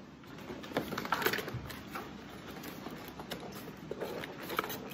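Cardboard toy box and its packaging being opened and handled: irregular rustling with scattered clicks and scrapes.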